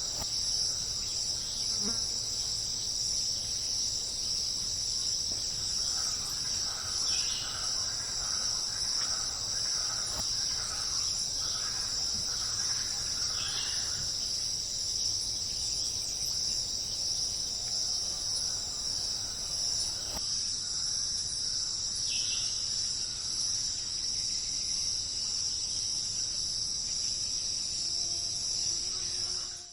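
Steady, unbroken high-pitched insect chorus, cricket-like, with a few faint short calls over it.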